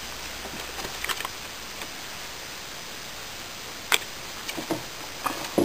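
Steady low hiss with a few short clicks and taps, the loudest about four seconds in, like the noise of a handheld camera being moved about.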